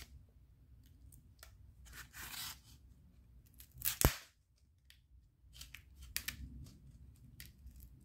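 A thin blade slicing through packing tape and corrugated cardboard on a comic book mailer: short scrapes and rasps with small clicks, and one sharp snap about four seconds in.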